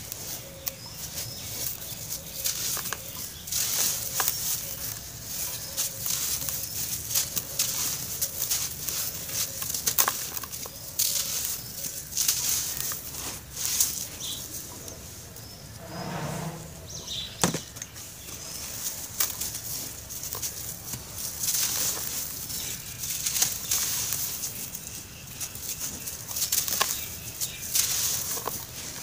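Hands crushing a dry, crumbly grey block and sifting the loose gritty powder through the fingers: continuous dry crunching and trickling with many small crackles.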